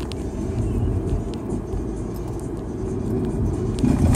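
Car driving at steady speed, heard from inside the cabin: a continuous low rumble of engine and tyre road noise, with a louder knock near the end.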